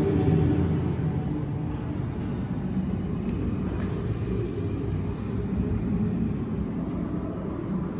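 Steady low rumbling hum of an indoor aquarium hall's background noise, with faint held tones near the start.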